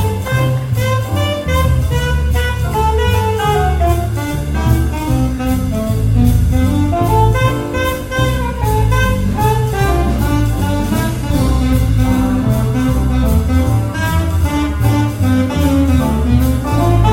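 Jazz big band playing swing: a saxophone solo line over walking upright bass, piano and a drum kit keeping time on the cymbals.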